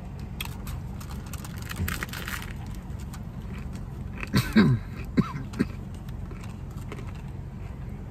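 Hard corn taco shell being chewed with crisp crunches during the first two and a half seconds. About four and a half seconds in there is a short hummed "mmm" that falls in pitch, with a couple of smaller mouth sounds after it. A low steady hum runs underneath.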